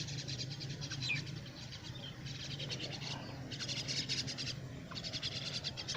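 High, rapid trilling bird calls repeated in bursts of about a second, with short gaps between.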